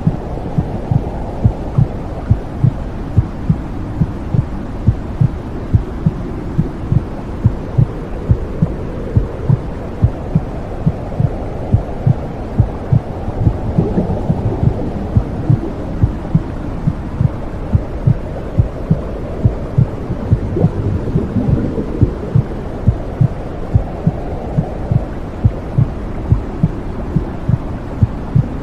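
Womb-sound recording: a muffled heartbeat thudding evenly, about two thumps a second, over a steady low noise.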